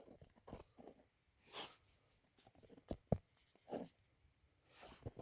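Faint, scattered rustles and light knocks of a garage door insulation batt being handled and fitted against a door panel, with one sharp click about three seconds in.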